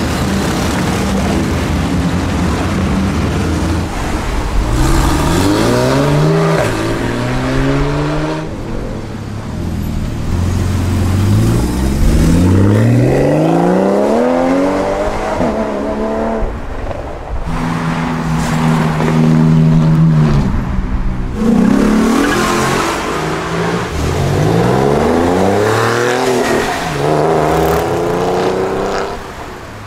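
Sports cars accelerating hard away from a crossing one after another, among them an Audi R8 and two flat-six Porsches, a Boxster and a 911. Each engine rises in pitch with a short drop at every upshift. About two-thirds of the way through, one engine is held at steady revs for a few seconds before rising again.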